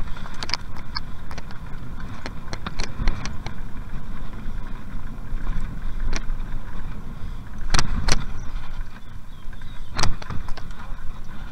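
Mountain bike running fast down a dirt trail: a steady low rumble of wind and tyres, with sharp knocks and rattles as the bike jolts over bumps, the loudest a pair about eight seconds in and another at ten.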